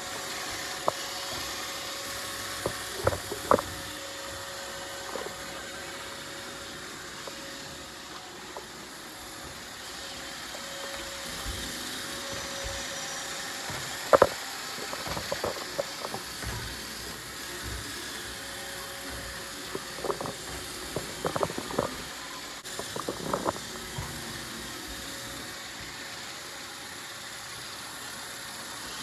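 Roomba robot vacuum running, a steady motor whir with a constant whine, broken by scattered sharp clicks and knocks, the loudest about halfway through and a cluster near the end.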